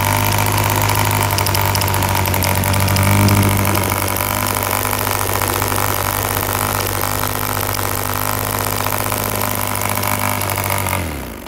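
Homemade replica of a 1945 Thorning Monsun model diesel engine, a small two-stroke compression-ignition engine, running flat out with a steady high buzz, briefly louder about three seconds in. Just before the end its pitch falls and it runs down and stops.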